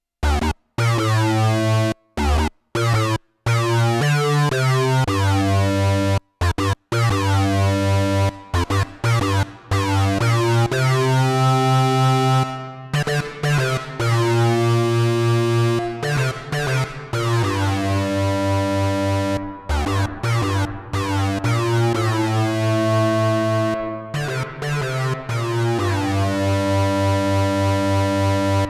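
Synthesizer playing a bass line and changing chords through the Donner Vintaverb stereo reverb pedal on its Dsverb algorithm. The sound cuts out to silence abruptly several times in the first few seconds, then plays on steadily.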